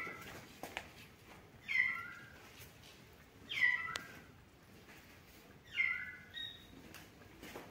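Kitten meowing over and over: three short, high-pitched calls that fall in pitch, about two seconds apart, with faint clicks between them.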